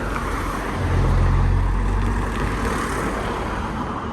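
A motor vehicle passing with a low engine hum that swells about a second in and then slowly fades, over steady road noise.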